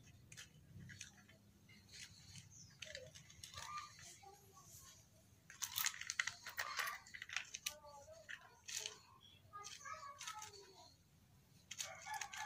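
Faint, irregular clicks and rattles of small laptop parts being handled by hand: a memory module and the plastic laptop base tapping and knocking, with a cluster of clicks about halfway through.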